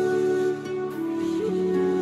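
Slow, gentle instrumental music: long held notes over a sustained low accompaniment, with a small slide in the melody near the end.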